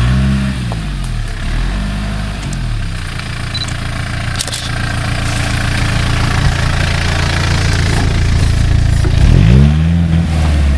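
Opel Frontera's engine running under load in low gear on rough off-road ground, its revs rising and falling sharply near the start, again about two seconds in, and once more near the end, with a steady drone in between.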